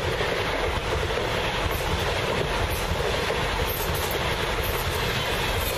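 Deutsche Bahn ICE high-speed electric train running past at speed: a steady rush of wheels on rail and air.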